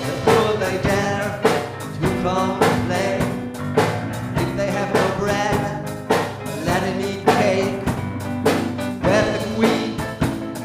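Slow rock ballad music: a drum kit strikes about once a second under bass and a sliding melodic lead line.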